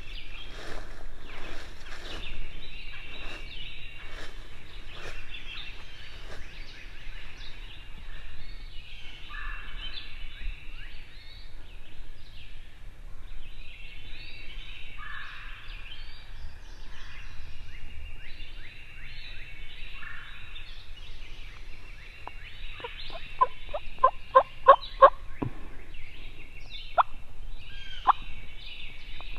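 Wild turkey gobbler gobbling close by: a loud, rapid run of notes a little over 20 seconds in, and a shorter gobble near the end. Songbirds sing throughout.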